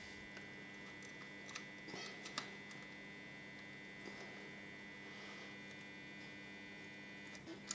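Faint steady electrical hum with a few light clicks and taps, about two seconds in and again near the end, as a bare wire end is handled and pushed into a power-strip socket.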